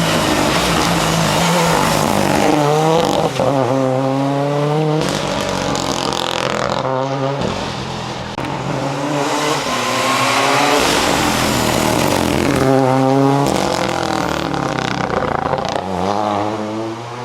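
Ford Fiesta RS WRC rally car's turbocharged four-cylinder engine revving hard. Its pitch climbs and drops repeatedly as it accelerates and shifts gear, across several short cuts.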